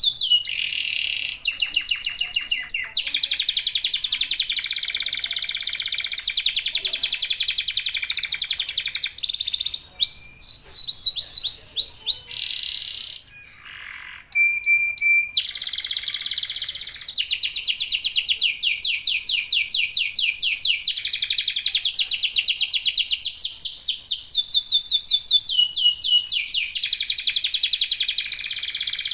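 Domestic canaries singing fast, high rolling trills and chattering phrases, one after another, with several sudden breaks where the song cuts off and starts again.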